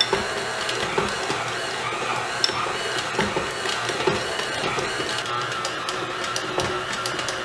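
KitchenAid Ultra Power tilt-head stand mixer running, its dough hook kneading a stiff, buttery bread dough in the steel bowl: a steady motor whirr, with a rapid run of sharp clicks in the second half.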